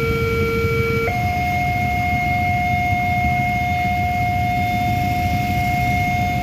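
Railway level-crossing warning siren sounding an electronic two-tone alarm: a lower tone for about the first second, then it switches up to a higher tone and holds it steadily instead of alternating, a siren the uploader calls faulty ('error'). A steady low rumble runs underneath.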